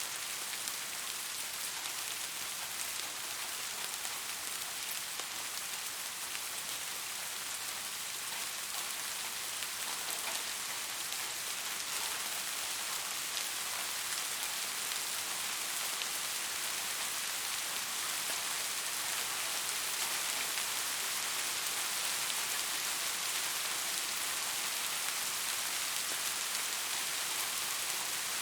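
Steady soft rain falling on a surface, an even hiss with scattered fine raindrop ticks, growing slightly louder through the stretch.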